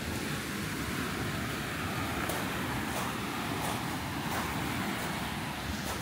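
Sea waves washing onto the beach, a steady noise, with wind rumbling on the microphone.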